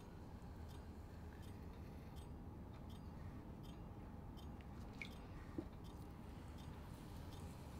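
Electric potter's wheel running with a quiet low hum while wet clay squishes under the hands and a sponge, with faint regular ticks about one and a half times a second. A brief squeak about five seconds in and a small click just after.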